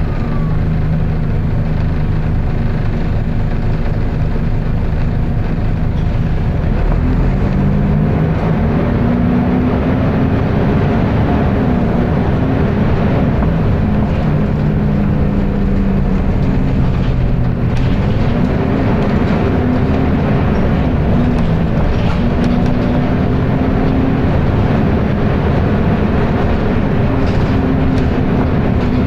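Volvo B10BLE bus heard on board: a loud, steady roar from its cooling fan. Under it the diesel engine note is steady at first, then rises and falls repeatedly from about seven seconds in as the bus pulls away and works through its gears.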